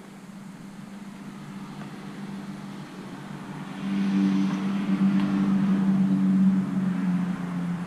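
A motor's steady hum swells louder about four seconds in, then eases off and drops slightly in pitch near the end.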